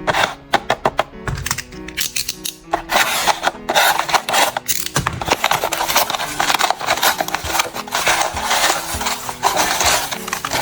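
Background music with a steady tune, under a dense run of quick clicks and rustles from paper being handled and worked in a papercraft.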